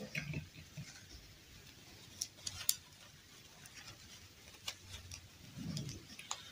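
Hands handling a plastic fashion doll and a fabric doll dress: faint cloth rustling with a few small, sharp clicks of plastic.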